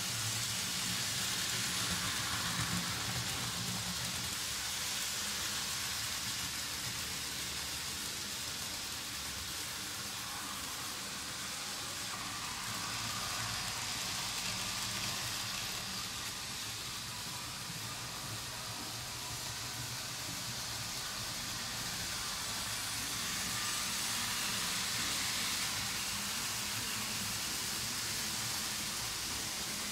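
Märklin model trains running on metal M-Track, a steady rolling rush of small metal wheels on the rails with a low hum underneath.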